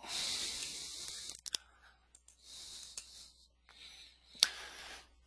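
Faint hissing rustle for about a second and a half, then quieter rustling with a few short, sharp clicks, the loudest about four seconds in.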